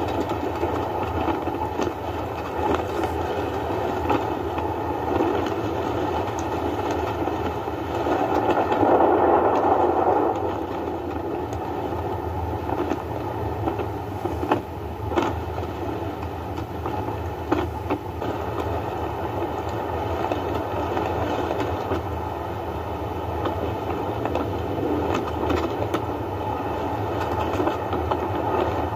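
Steady rushing storm noise of wind and heavy rain with a low rumble underneath, swelling louder about a third of the way in, with a couple of brief sharp clicks later on.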